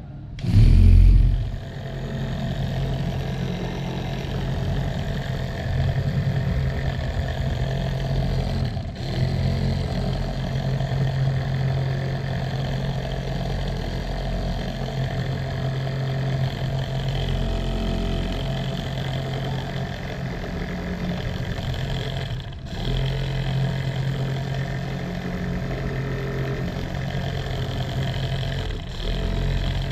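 Homemade RC model tractor with its rotavator tines spinning: a loud burst as the rotavator starts up about half a second in, then a steady motor hum that briefly drops out a few times.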